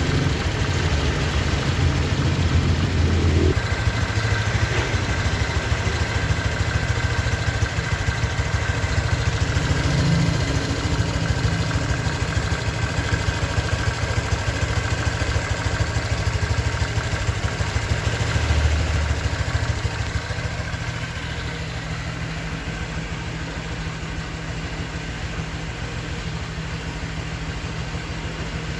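Honda Vario 125 scooter's single-cylinder engine running steadily at idle, settling a little quieter about 20 seconds in. The owner judges it to be running smoother at around 1,000 km of running-in.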